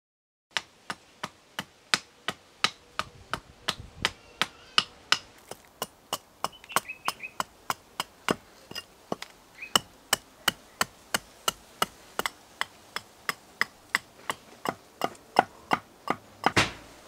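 A hand-forged spring-steel carving axe chopping into a wooden blank on a chopping stump in quick, sharp strokes, about three a second, starting about half a second in. One longer, louder hit comes near the end.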